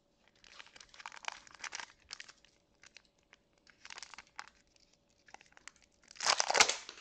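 Wrapper of a Pokémon Trick or Trade booster pack crinkling in short bursts as it is handled, with a louder burst of crinkling a little after six seconds.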